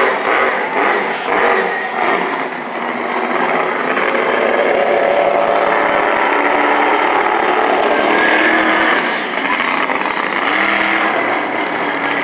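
Monster truck's supercharged V8 engine revving hard, its pitch rising and falling as the truck drives over dirt jumps, heard loud over the stadium background noise.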